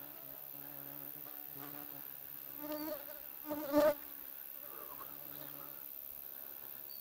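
Flying insects buzzing close to the microphone, a steady low drone that comes and goes, with two louder, wavering passes near the middle as an insect flies right past.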